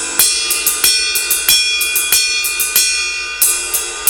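Sabian HHX dry ride cymbal struck with a drumstick in a steady ride pattern, about four to five strikes a second, each with a clear ping over a ringing wash.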